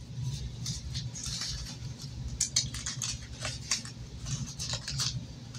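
Paper cash and binder pages being handled: scattered rustles and light clicks over a low, steady hum.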